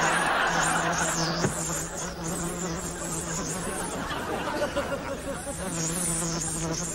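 An insect buzzing close by, a steady drone that wavers up and down in pitch, with a burst of audience laughter over the first second or so.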